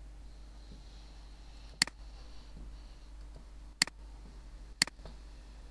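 Computer mouse button clicked three times: short sharp clicks, the second two seconds after the first and the third a second later, over a low steady hum.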